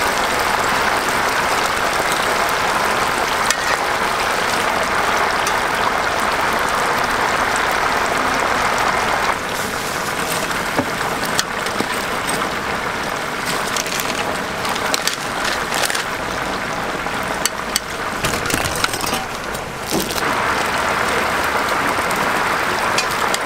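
Whole battered chickens deep-frying in a large cast-iron pot of hot oil, the oil sizzling with a steady hiss. The sizzle drops from about 9 to 20 seconds in, and sharp clicks come through before it returns at full strength.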